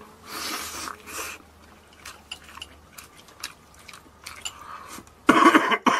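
A man chewing a mouthful of battered, fried sweet-and-sour fish: a breathy intake in the first second, then small wet clicks of chewing, and a loud noisy burst near the end.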